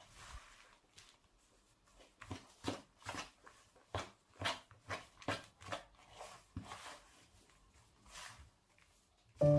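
Hands squeezing and kneading crumbly cookie dough made with ground cashews in a plastic bowl: short, irregular squishing and crumbling sounds, a couple a second, faint.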